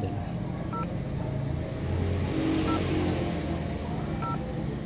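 Short electronic beeps from a QCY F11 Plus mirror dashcam's touchscreen as its buttons are tapped, three in all, over the steady low hum of the car's running engine.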